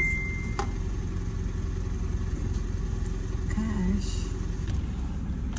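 Car engine idling, heard as a steady low hum inside the cabin. Right at the start comes a single short high electronic beep as a card is held out to the drive-through payment terminal.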